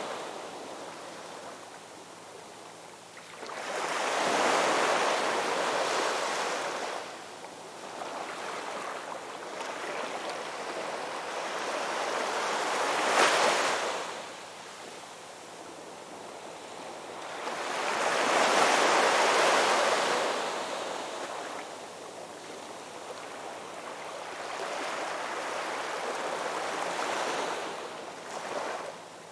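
Ocean waves breaking and washing in, rising and falling in swells: big ones a few seconds in, with a sharp crash about halfway through, and again about two-thirds of the way through.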